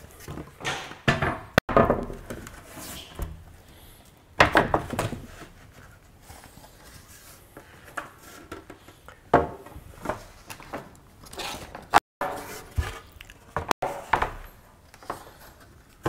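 Wooden boards being lifted, shuffled and set down, knocking and clattering against one another in a series of separate knocks.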